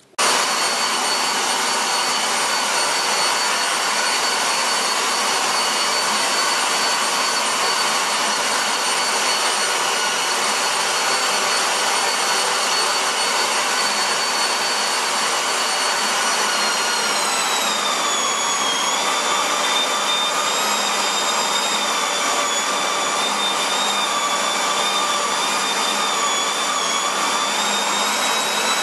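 Electric meat grinder switched on, its motor running with a steady high whine. About 17 seconds in, the pitch sags and stays lower as the motor takes the load of grinding chicken skin, onion and garlic through a 3 mm plate.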